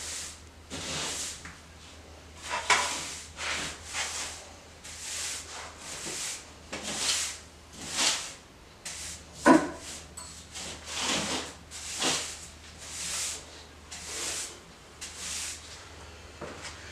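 Angle broom sweeping a bare subfloor: short scratchy strokes of bristles on the floor, a little more than one a second, a couple of them heavier.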